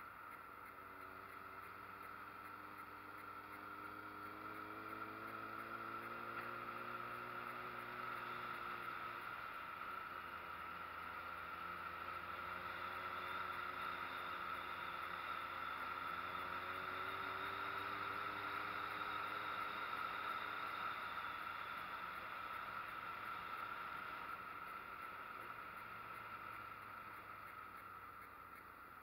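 Street motorcycle engine running under load on an uphill ride, its pitch climbing slowly, dropping back about a third of the way in, then climbing again, over a steady hiss.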